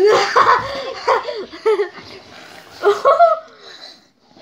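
Two boys laughing and shrieking in short bursts, in three clusters: at the start, about a second in, and around three seconds in.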